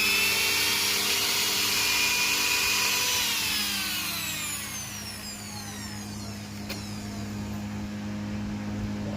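Mixer grinder's motor running at high speed with a high whine, then switched off about three seconds in, its pitch falling as it spins down, over a steady low hum.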